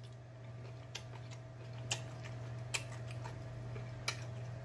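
Close-miked mouth chewing food, with a few sharp lip-smacking clicks about a second apart over a steady low hum.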